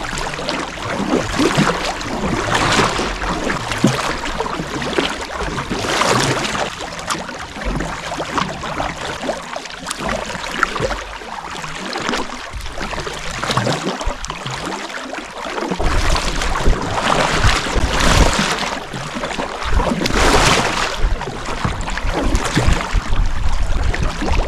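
Kayak paddle strokes dipping and splashing in the water every couple of seconds, over the steady rush of water past the hull. Wind rumbles on the microphone in the later part.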